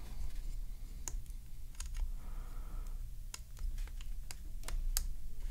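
Hard plastic parts of a DX9 Capone Transformers figure clicking and tapping as they are handled and fitted together: about ten sharp, irregular clicks spread over a few seconds.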